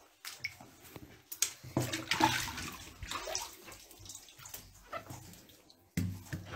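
Shallow water splashing and sloshing as a hand reaches into a tank of turtles and lifts one out, with water running off its shell. The loudest splashing comes about two seconds in, and there is another sudden splash near the end.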